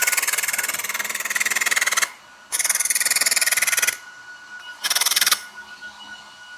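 Pulse laser welder firing, a fast even crackling buzz of rapid pulses in three runs: about two seconds, about a second and a half, and a short half-second burst. A faint steady high tone carries on in the pauses between runs.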